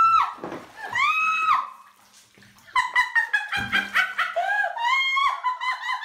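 A long-haired tortoiseshell cat yowling after falling into bathwater: two drawn-out high cries within the first second and a half. From about halfway through, a fast run of high pitched notes follows.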